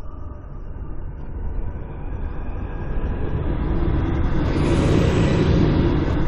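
Sound-designed ghost flyby whoosh: a low rumbling rush that slowly swells, grows brighter and peaks loudest about five seconds in, then starts to fade as it passes.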